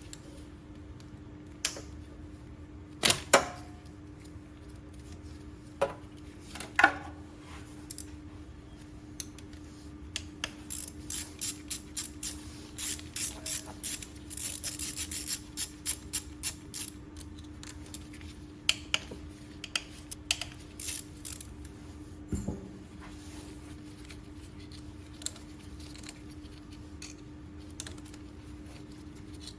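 Scattered clicks, knocks and light metallic clatter of hand tools and small parts being handled, busiest in the middle, over a steady hum.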